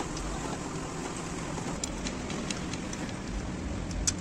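Spanner clinking against the steel clamp bolts of a truck brake servo being undone: a few light metallic clicks around the middle and one sharper clink near the end, over a steady background hiss.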